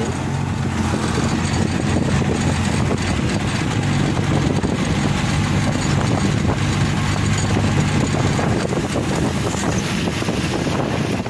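Auto-rickshaw (three-wheeler) engine running steadily as it drives along a rough dirt track, heard from aboard with wind noise on the microphone.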